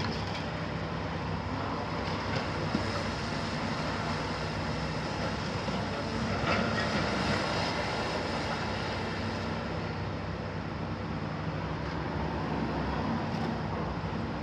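Hitachi 350 demolition excavator's six-cylinder Isuzu diesel running steadily under hydraulic load, with the crunch and clatter of concrete rubble as the demolition jaw breaks the building wall.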